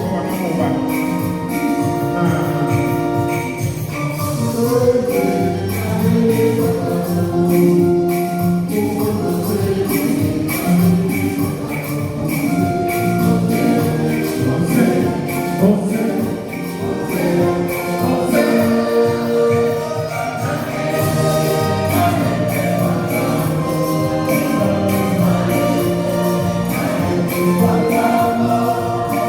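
Church choir singing gospel music over instruments, with a steady beat from a tambourine or similar shaken jingles.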